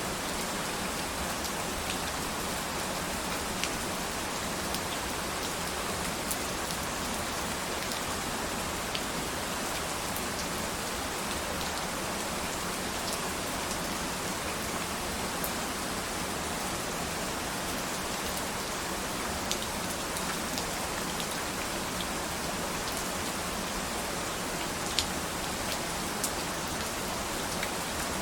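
Steady rain falling on a surface, an even hiss with scattered sharper drop ticks, one louder tick about 25 seconds in.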